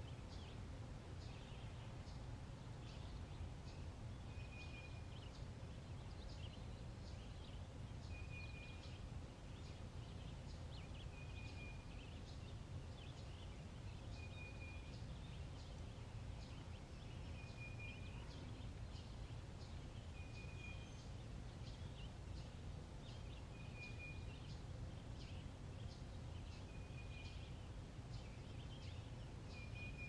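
Birds chirping over a low, steady outdoor rumble, with one short, level call repeating about every two and a half seconds.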